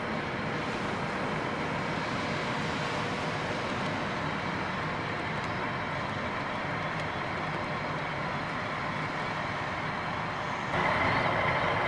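HO scale model double-stack well cars rolling along the track: a steady rumble of small wheels on rail. Near the end the sound suddenly steps up, louder and brighter.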